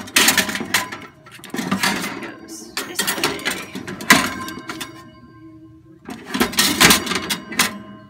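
Metal baking tray of a Cuisinart toaster oven clattering and scraping against the oven rack as it is slid in, in several bursts of metallic rattling.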